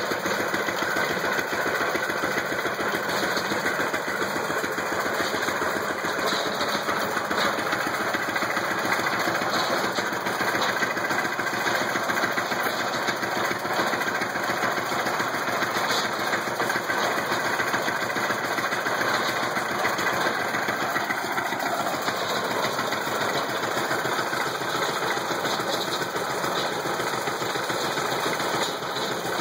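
IHC LB 3-5 hp single-cylinder gasoline engine running steadily, driving a Lilliston baler, with quick, even beats.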